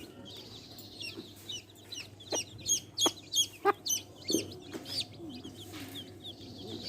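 Baby chicks peeping in quick, short, high chirps, with a burst of loud peeps in the middle, over hens clucking low in the background.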